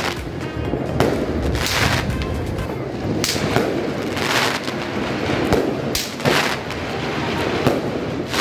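Aerial fireworks exploding overhead: a run of sharp bangs about one to two a second, with short bursts of crackling after several of them.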